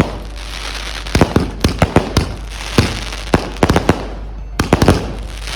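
Fireworks going off: a rapid, irregular series of sharp bangs, several a second at times, over a steady hiss between them.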